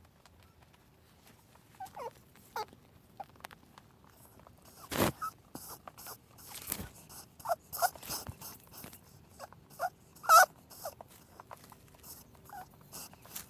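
Small animals giving short, high squeaks or whimpers, scattered between clicks and rustling. There is a sharp click about five seconds in and the loudest squeak about ten seconds in.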